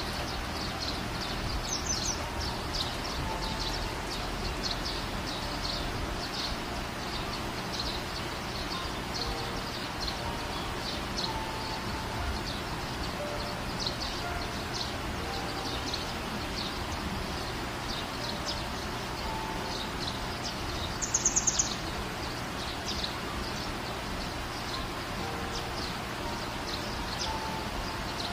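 Outdoor ambience of small birds chirping over a steady low background noise, with a short loud run of high chirps about twenty seconds in.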